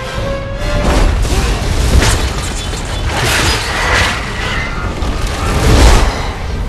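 Cinematic action sound effects: heavy booms and crashes over a deep rumble, swelling several times and loudest about six seconds in, with film music beneath.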